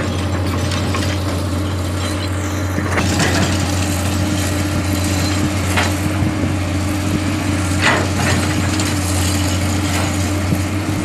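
Komatsu hydraulic excavator's diesel engine running steadily, with a few sharp knocks every two or three seconds.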